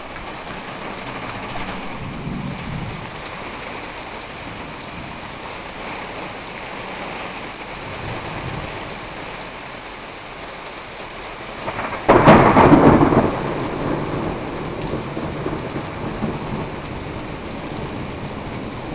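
Heavy rain falling steadily in a thunderstorm. About twelve seconds in, a sudden loud thunderclap cracks and rumbles away over a couple of seconds.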